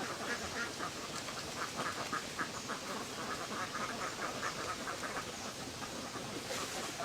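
A flock of ducks quacking, many short calls in quick succession.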